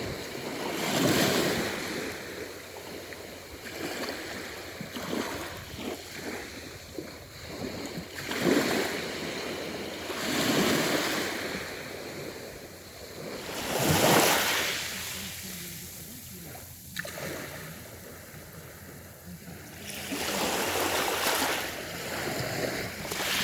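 Aegean Sea waves breaking and washing, swelling and fading every few seconds, loudest about a second in and again around fourteen seconds in.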